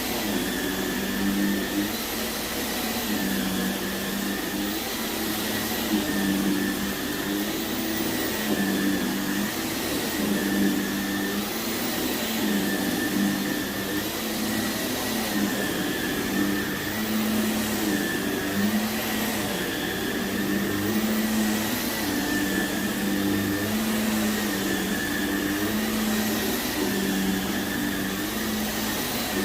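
Vacuum cleaner running steadily over heavily soiled carpet, its motor tone wavering every second or two as it is pushed back and forth.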